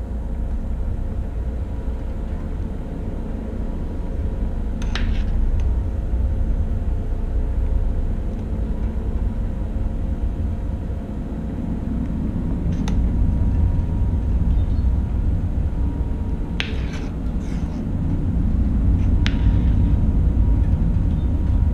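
Steady low machinery rumble with a faint steady hum, broken by a few short, sharp clicks or knocks, four in all.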